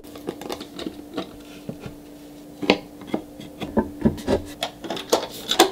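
Pine furniture parts being assembled by hand: irregular wooden knocks, clicks and rubbing as the panels, dowels and hardware of a nightstand are fitted together, with two louder knocks, about two and a half seconds in and near the end.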